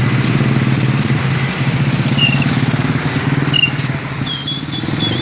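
Bus engine idling steadily, with a few short high chirps over it.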